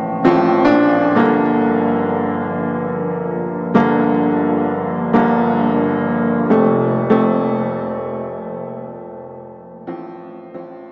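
Background piano music: single notes and chords struck a second or more apart and left to ring, fading out toward the end.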